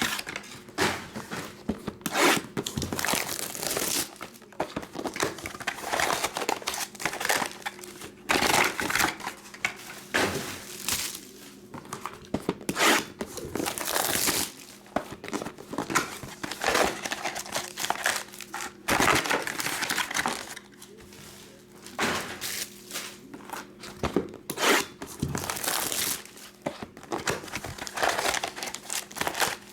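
Trading-card pack wrappers being handled and torn open: irregular bursts of crinkling and rustling.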